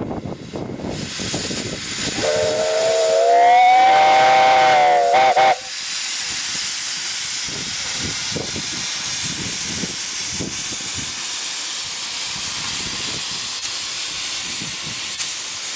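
Steam whistle of a Romney, Hythe & Dymchurch Railway 15-inch-gauge steam locomotive: one long blast rising slightly in pitch, then two quick short toots, sounded as it pulls away. A steady hiss of steam follows.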